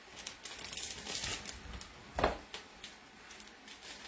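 Plastic wrapper of a tube of refrigerated cookie dough crinkling and rustling as it is peeled off the dough log, with one short louder knock about two seconds in.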